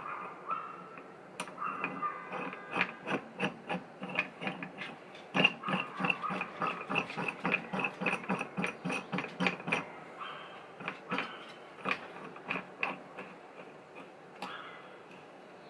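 Ratchet spanner clicking in quick runs with short pauses as it turns a drawbolt puller, pulling an engine mount into a tight-fitting bore in the engine casing.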